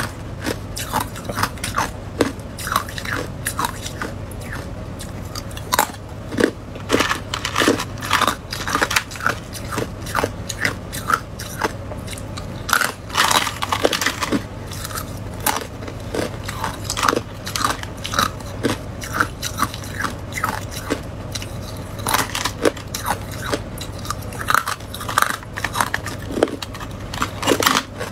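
Thin slabs of hard ice being bitten and chewed: a dense run of crisp, irregular cracks and crunches, several a second.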